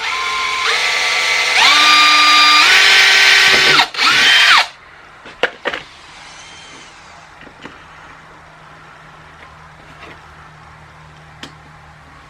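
Power drill boring the second screw pilot hole: the motor whine climbs in pitch in steps as the trigger is squeezed, breaks off briefly near four seconds, spins up once more, then stops at about four and a half seconds. A few light clicks follow.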